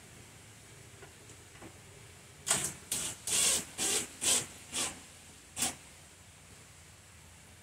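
Cordless drill run in about seven short bursts into a cedar board, driving a wood screw and stopping short of flush so the cedar doesn't split.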